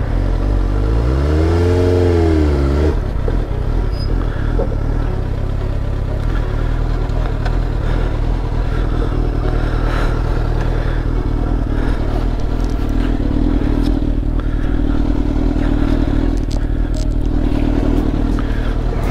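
A 2004 Suzuki GSX-R 600's inline-four engine idling with the bike stopped. About half a second in, it is given one throttle blip that rises and falls in pitch over two seconds before settling back to idle.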